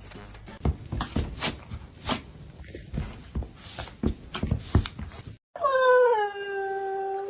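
A run of irregular sharp taps and knocks, then, after a brief break, a cat's long drawn-out meow that starts a little higher and settles to a steady pitch.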